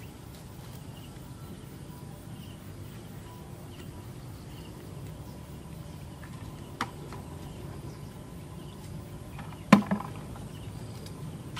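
A steady low rumble, with a faint click about seven seconds in and a sharp double knock near the end.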